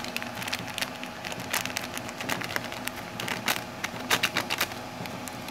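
Irregular light clicks and crackles of kitchen utensils being handled while spices are added to a dish, over a faint steady hum. The clicks bunch up a little after a second in, and again in the second half.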